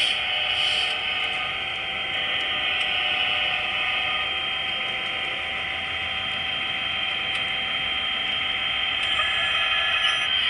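HO-scale model train running on the track: a steady high-pitched mechanical whir from the locomotive's motor and gearing, with a few faint clicks.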